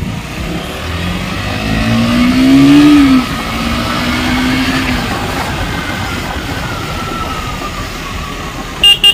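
Motorcycle engine accelerating under the rider, its pitch climbing for about two seconds, then dropping sharply about three seconds in as the throttle is eased or a gear changed, then running steadily, with wind rushing over the microphone. Two brief loud beeps near the end.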